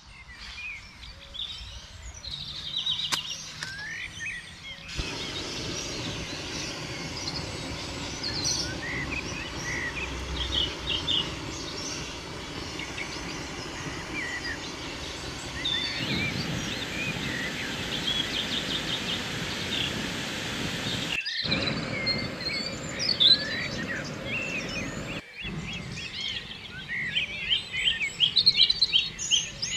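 Many birds chirping and singing together, quick overlapping calls throughout. Through the middle stretch a steady hiss lies under the birdsong.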